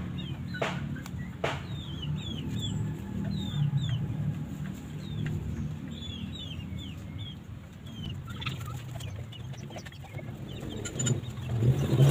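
Fowl clucking, with many short, high, falling chirps over a steady low hum. A few sharp clicks come in the first two seconds.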